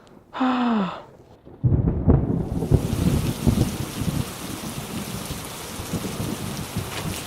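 Thunder rumbling, with steady heavy rain coming in about a second later and continuing as an even hiss. A short falling vocal sound comes just before the thunder.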